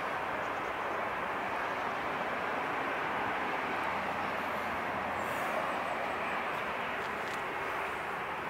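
Lufthansa Airbus A321 airliner's jet engines running at low thrust as it taxis and turns onto the runway, a steady even hiss of engine noise.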